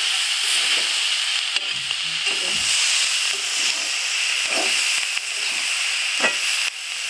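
Chopped spring onion greens and diced potato sizzling in oil in a karahi, with a steady hiss, while a metal spatula scrapes and knocks against the pan as they are stirred. There is a sharper clank about six seconds in.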